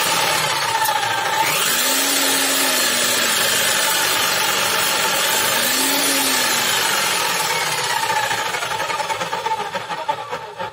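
Electric motor of a Bosch GSH 11E demolition hammer running free with no load, its pitch rising and falling a few times as the motor speed is varied. It then winds down and stops near the end.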